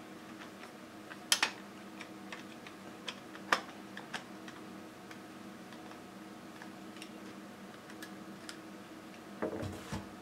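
Scattered sharp plastic clicks and ticks as a 12A laser toner cartridge is worked on with a screwdriver and handled. Near the end there is a short cluster of heavier knocks, with a steady low hum underneath.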